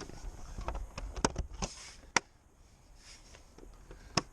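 Plastic truck mirror cover being pressed onto the mirror housing: a few sharp plastic clicks as it snaps into place, with a brief rubbing of plastic on plastic between them.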